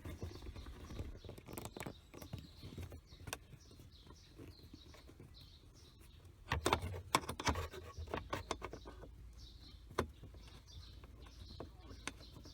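Scattered clicks and knocks of hand tools on metal as nuts are undone, with a busier run of clicks about six and a half to seven and a half seconds in. Faint birds chirp in the background.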